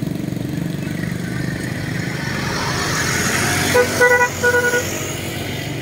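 Motor traffic passing close by, a motorcycle engine among it, with a vehicle horn tooting three short times about four seconds in.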